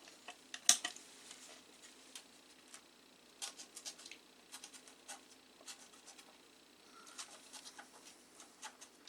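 Small hand tools clicking and scraping at a circuit board while a processor socket is being desoldered: scattered light clicks and ticks, with one sharper click about a second in.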